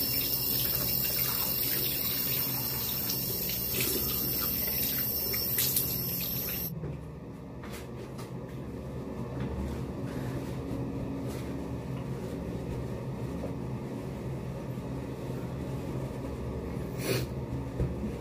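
Bathroom sink tap running as warm water is splashed on the face, shut off abruptly about seven seconds in. After that there are only faint rustles and a few light knocks while the face is dried with a towel.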